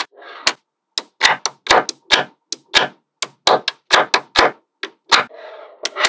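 Small magnetic balls snapping together one after another: a quick, irregular run of sharp clicks, with short stretches of softer rattling.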